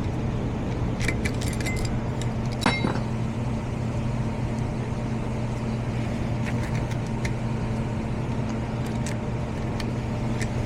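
Small metallic clicks and taps from hand work on a zone damper motor's screw and mounting. The loudest click comes about two and a half seconds in. A steady low mechanical hum runs underneath.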